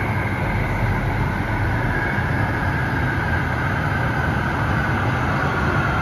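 Los Angeles Metro light rail train approaching the platform from the tunnel: a steady rumble with a faint whine that falls slowly in pitch.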